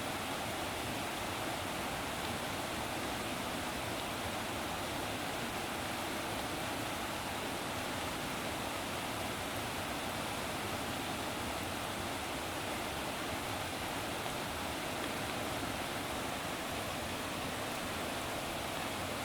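Steady, even rushing of flowing water, unchanging throughout.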